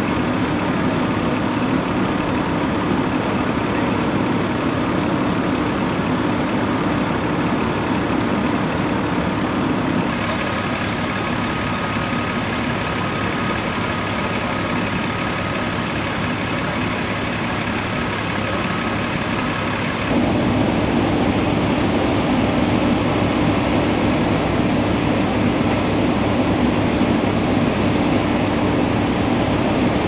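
Fire engines idling, a steady engine hum with a constant low tone and a thin high whine. The level shifts slightly about ten and twenty seconds in.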